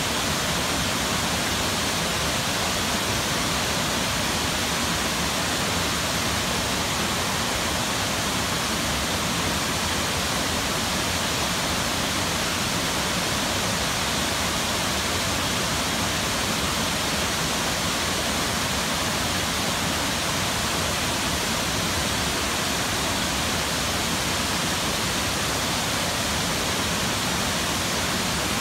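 McCloud Falls pouring into its plunge pool: a steady, even rush of falling water.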